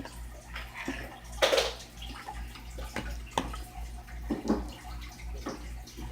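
Wet squelching of sticky shaving-cream slime being mixed and poked in a bowl, in a few irregular squishes, the loudest about a second and a half in.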